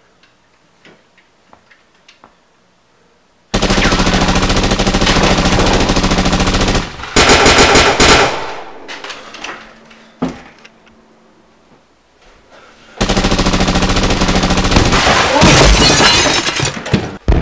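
Automatic machine-gun fire, a sound effect laid over Nerf blasters being fired. It comes in two long sustained bursts, the first starting suddenly about three and a half seconds in and the second about thirteen seconds in, with a short, sharper burst between them.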